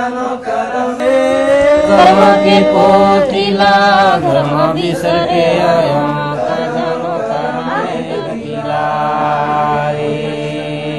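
Men singing unaccompanied in a chant-like folk style, with long held notes that bend and slide in pitch.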